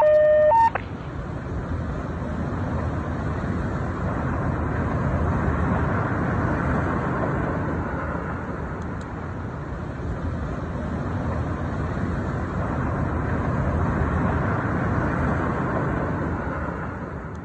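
A short, loud electronic beep in the first second, then a steady rumbling noise that fades out near the end.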